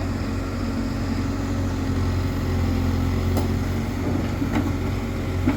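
Case 851EX backhoe loader's diesel engine running steadily, with three short clicks or knocks in the second half.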